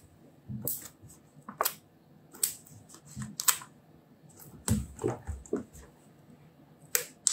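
Light paper handling: a scattered run of small clicks and rustles as 3D foam adhesive pads are peeled from their sheet and pressed onto a cardstock cut-out.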